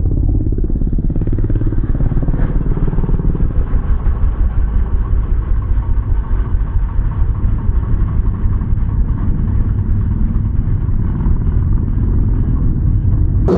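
Muffled, steady low rumble of speedway motorcycle engines, dull with no high end.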